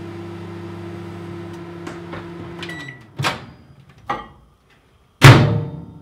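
Microwave oven running with a steady hum, then stopped just under three seconds in with about a second left on its timer, with a short beep. Then come a couple of clicks and, near the end, a loud thump as the door is handled.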